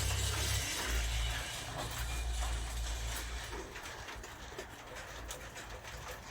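A low rumble that fades after about three seconds, with faint light clicks of a spanner on small nuts and bolts.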